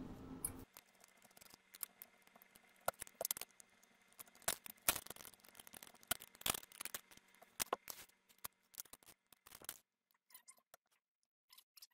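Faint, irregular small metallic clicks and ticks from an Allen key working the screws of a 3D printer's build plate as they are undone. The clicks thin out near the end.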